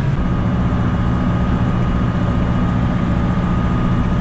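Farm tractor engine running steadily while mowing with a bush hog rotary cutter, with a steady high whine that comes in just after the start.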